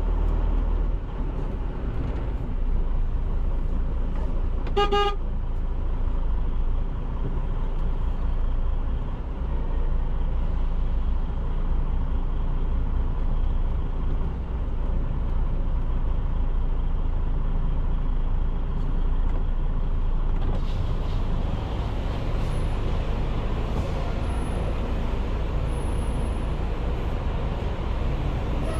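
Semi-truck's diesel engine running steadily, with one short horn toot about five seconds in. A higher hiss joins after about twenty seconds.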